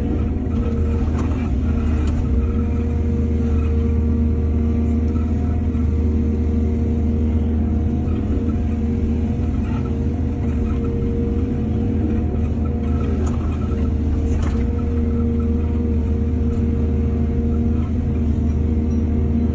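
Excavator's diesel engine running steadily under load with a deep hum, and a few short knocks from the working machine near the start and again about two-thirds of the way through.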